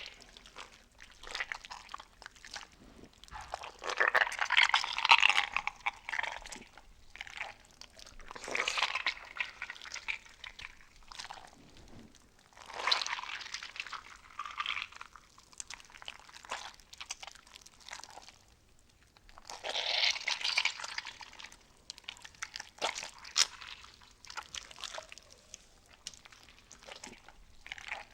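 Wet slime squishing and oozing in irregular bouts of squelching and crackling, each lasting a second or two, with quieter sticky patter between them.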